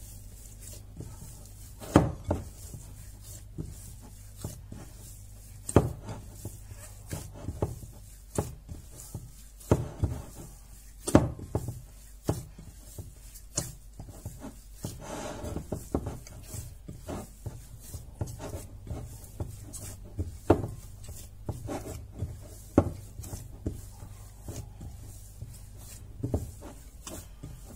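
Hands kneading semolina bread dough in a glass bowl: soft rubbing and squishing, with irregular sharp knocks every few seconds.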